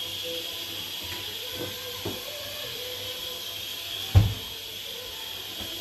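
Steady high hiss of steam escaping from a pressure cooker cooking on high heat. A few dull knocks come over it, the loudest about four seconds in.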